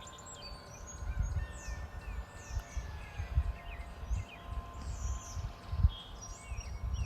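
Several wild songbirds chirping and calling over one another in quick, short falling notes. A few long steady ringing tones and an uneven low rumble of wind on the microphone run beneath them.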